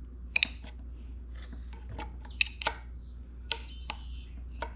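Flathead screwdriver and pliers prying at the metal collar ring on an outboard lower unit's water pump drive shaft: scattered sharp metallic clicks and ticks with faint scraping in between, over a steady low hum.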